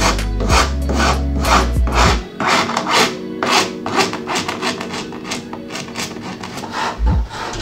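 Steel hand file scraping back and forth along the edge of a laminate-faced cabinet panel, in quick even strokes of about three a second.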